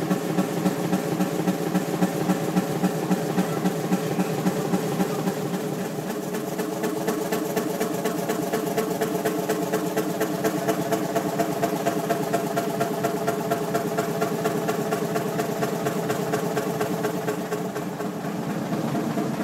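1930 Fairbanks Morse 450 hp six-cylinder two-stroke diesel engine running steadily, with an even, rhythmic beat.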